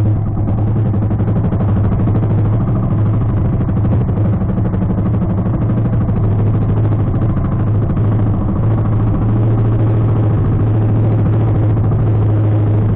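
Small outrigger fishing boat's engine running steadily, an unchanging hum with no change in speed.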